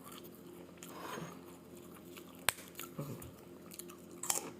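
A person chewing a mouthful of ketoprak with garlic crackers, soft and irregular, with one sharp click about halfway through and a short crunchy burst near the end.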